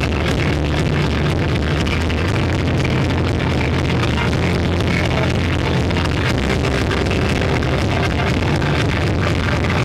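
Instrumental rock band playing live: electric guitars, bass and drums, loud and dense, with a constant run of drum hits.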